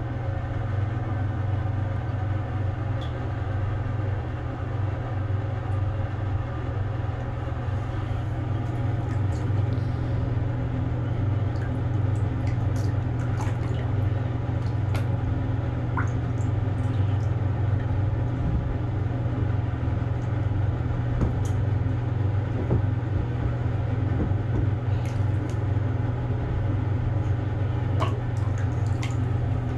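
Steady low mechanical hum, with light splashes and drips of shallow bathwater as a bearded dragon and a hand stir it. The splashes come more often from about a third of the way in and again near the end.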